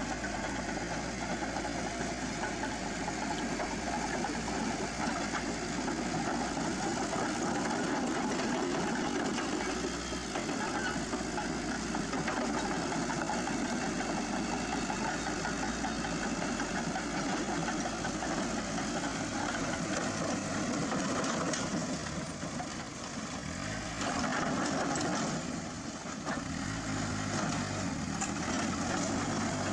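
An engine running steadily, its sound dipping briefly a little over twenty seconds in and taking on a clearer low hum near the end.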